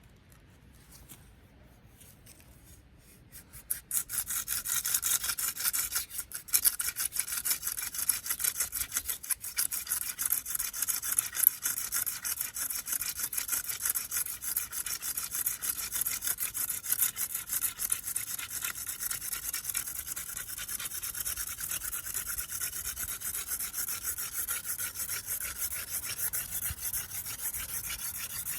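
Cattail hand-drill spindle twirled fast between the palms in a velvetleaf stem hearth: a continuous rapid rubbing with a squeaky tone over it, starting about four seconds in.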